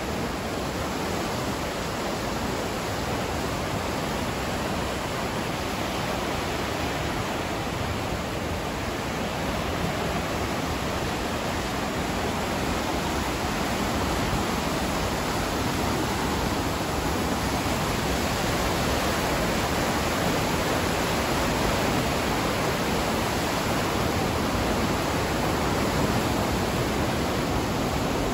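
Whitewater of Johnston Creek rushing through the narrow rock canyon below: a steady, even rush that grows a little louder toward the end.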